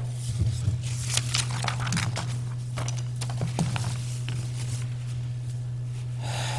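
Steady low hum, with scattered clicks and rustles during the first few seconds that then die away.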